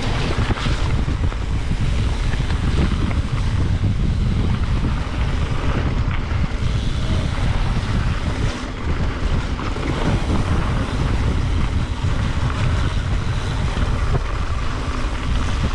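Wind buffeting the microphone of a camera riding on a mountain bike, over a steady low rumble of tyres on a wet dirt trail, with a few small knocks from bumps.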